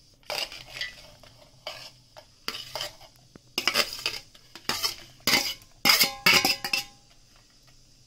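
Steel ladle scraping and clinking against a stainless-steel plate and mixer jar as soft fried tomatoes and spices are pushed off into the jar: a string of short scrapes, loudest with a brief metallic ring about six seconds in, stopping a second before the end.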